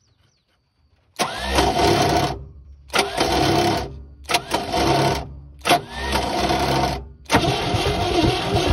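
Starter cranking the 1971 International truck's engine over without it firing, with a spark plug out and a compression gauge in its hole for a compression test. It cranks in four short spells with brief breaks, then steadily from about seven seconds in.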